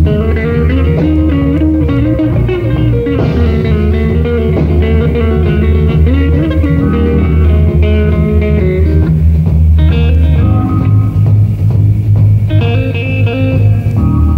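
Blues-rock band playing live: electric lead guitar with bending notes over bass guitar and drums.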